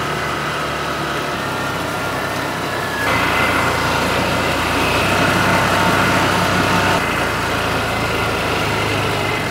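Polaris Ranger side-by-side's engine running under way, with a steady whine. It gets louder about three seconds in and eases back about seven seconds in.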